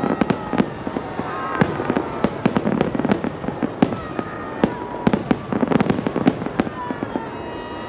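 A massed salute fireworks display: many aerial shells bursting in quick, uneven succession, a dense run of sharp bangs, thickest about five to six and a half seconds in.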